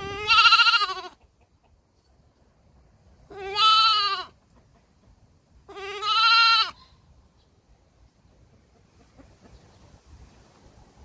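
Baby goat bleating three times, each bleat about a second long with a wavering pitch, a couple of seconds apart.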